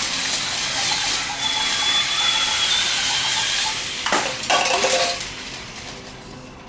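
Remote-control GRRRUMBALL toy vehicles racing on a track, with plastic clattering and clinking throughout. There are two sharp knocks about four seconds in, and the sound then fades away.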